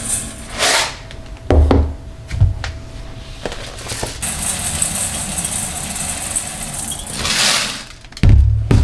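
Objects being handled: a few scattered knocks and thumps, a steady hiss through the middle, and a rushing swell followed by a heavy low thump near the end.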